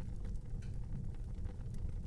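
Fire burning in an outdoor fireplace: a steady low rumble of flames with scattered faint crackles.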